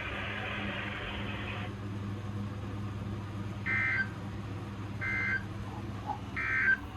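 Three Emergency Alert System end-of-message data bursts: short, harsh two-tone digital squawks, each about a third of a second long and about a second apart, played over a steady low hum. They signal that the alert test is over. A hiss cuts off a couple of seconds before the first burst.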